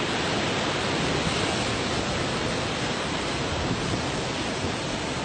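Steady, even rushing noise of ocean surf washing against the base of a sea cliff.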